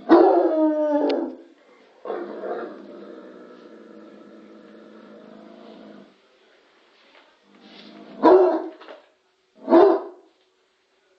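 Bloodhound baying: a loud howl falling in pitch at the start, a long, quieter drawn-out howl, then two short, loud barks a second and a half apart near the end.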